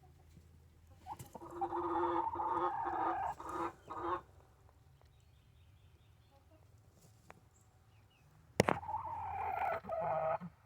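A pet wheezing: two long, hoarse bouts of strained breathing, the first starting about a second in and lasting about three seconds, the second near the end lasting about two seconds. A sharp knock comes just before the second bout.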